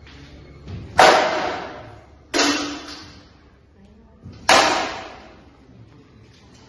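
Kalarippayattu weapons striking a shield three times, each strike loud and ringing out as it fades, echoing in a large hall.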